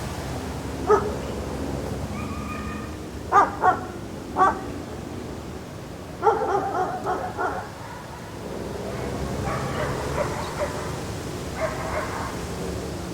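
Dog barking over a steady low outdoor background: single barks, then a quick run of several barks about six seconds in, and fainter barks after that.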